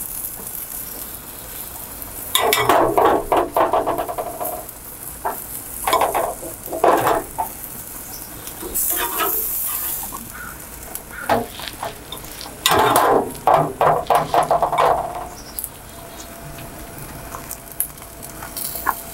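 Metal spatula scraping and clattering against a gas grill's grate in three bouts, with food sizzling on the grill.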